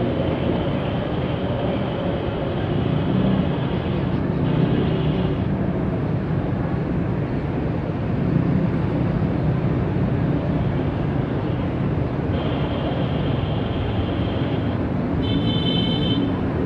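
Jet airliner engines running, a steady rumble without a break.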